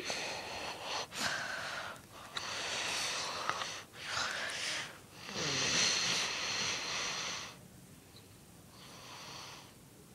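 A person snoring: a run of noisy breaths, each a second or two long, the longest and loudest about six seconds in, then a fainter one near the end.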